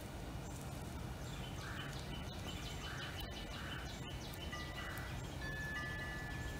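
Soft background music with long held high tones over a steady hiss.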